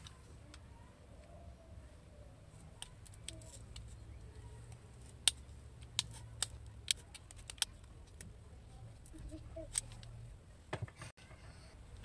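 Sharp separate clicks from small metal antenna parts being handled and bent by hand, about six in quick succession in the middle and a few more near the end, over a low steady hum.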